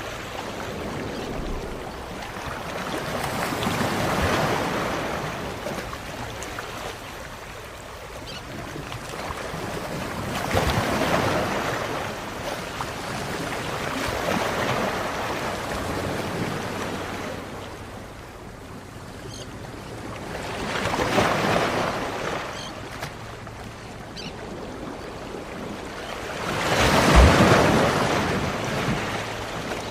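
Sea surf breaking on a beach: waves swell and wash in one after another every few seconds, the loudest surge near the end.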